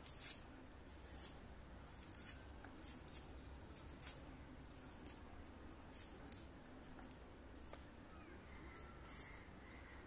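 Small onions being peeled and cut against a boti's curved blade: a run of short, crisp snicks and scrapes at uneven spacing, roughly one or two a second.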